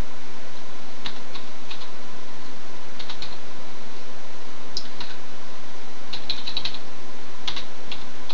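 Keystrokes on a computer keyboard in several short bursts of typing with pauses between, over a steady background hiss.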